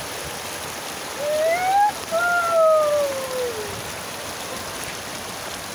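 Muddy floodwater rushing across a street in heavy rain, a steady wash of noise. From about a second in, a high drawn-out call sounds over it twice, the first rising in pitch and the second, longer one falling away.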